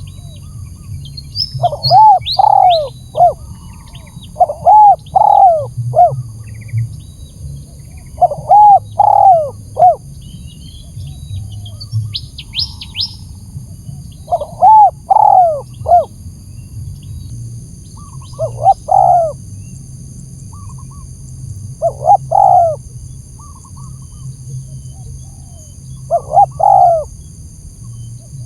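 Spotted dove (tekukur) cooing, used as a lure call to provoke rival birds: seven phrases of three or four arching coos, repeated every few seconds. A few faint, high chirps from small birds come in, most clearly about twelve seconds in.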